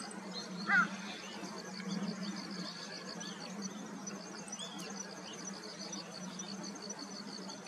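A meadow bunting gives one sharp, loud call note about a second in. Behind it insects keep up a steady, fast pulsing trill, and a few faint bird notes follow.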